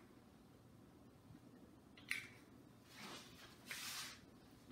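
Near silence with a faint click about two seconds in and a little soft hissing a second later.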